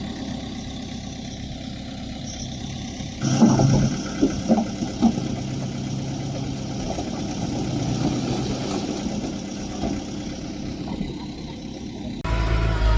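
Diesel engine of earthmoving machinery running steadily, with a few sharp bangs about three to five seconds in. Near the end the sound switches abruptly to a louder, deeper engine.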